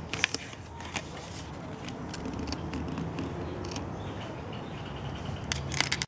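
Craft knife cutting a circle out of a thin plastic drink bottle: scattered small crinkles and clicks of the plastic, with a cluster near the end, over a steady low background hum.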